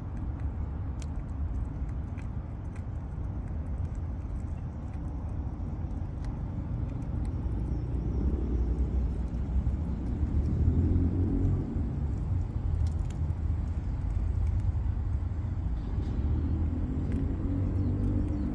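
Steady low rumble of road traffic, louder in the middle.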